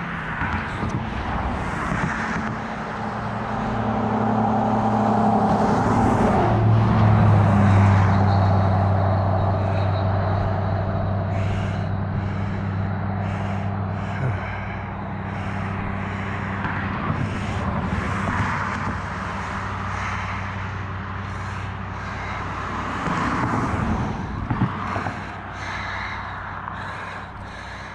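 Passing road traffic: a vehicle's engine drone builds to a peak about seven or eight seconds in and slowly fades. Another vehicle swells briefly near the end.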